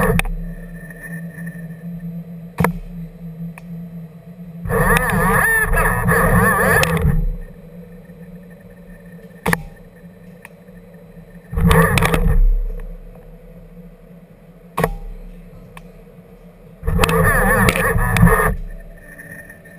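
ABB IRB 140 industrial robot arm's servo drives whining as the arm moves, in three bursts of about one to two and a half seconds each, the pitch sliding up and down as the axes speed up and slow down. Single sharp clicks fall between the bursts over a low steady hum.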